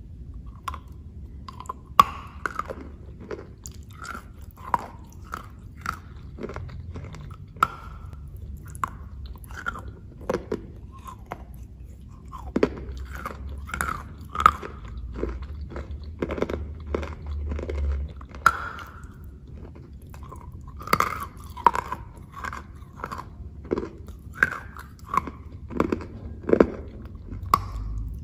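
Close-miked biting and chewing of a pastry coated in chocolate paste: irregular sharp clicks and crackles with softer chewing between them.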